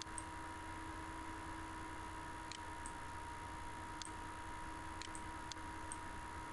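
Several faint, scattered computer mouse clicks over a steady low hum and hiss of the recording.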